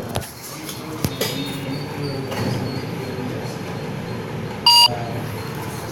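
A phone barcode scanner app's single short electronic beep, about a quarter second long, about four and a half seconds in: the confirmation that a QR code has been read.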